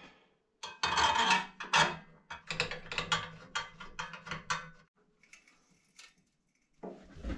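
Metal scraping and quick clicking as the vent terminal cap of a direct-vent propane wall heater is worked onto its metal vent pipe and fastened with a hand screwdriver. The clicking stops about five seconds in.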